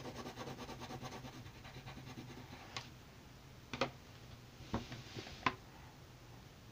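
Pencil lead scratching on paper in rapid back-and-forth shading strokes, about six a second, for the first two and a half seconds. Four sharp knocks follow over the next three seconds.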